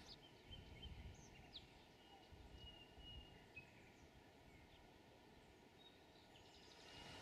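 Faint birdsong: scattered short chirps and quick falling flicks, with a few thin held whistles, over near-silent background.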